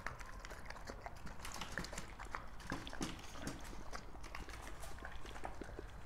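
Pit bull eating a wet breakfast of beef, cucumbers and quail eggs from a bowl: irregular wet chewing, smacking and clicking, several a second.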